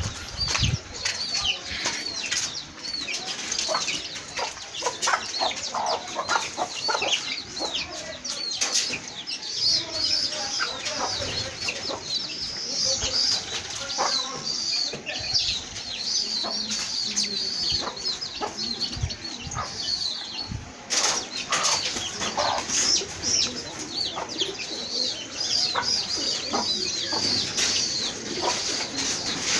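A flock of chickens calling, with a constant stream of short, high peeps and chirps, clucking, and scattered sharp clicks and knocks.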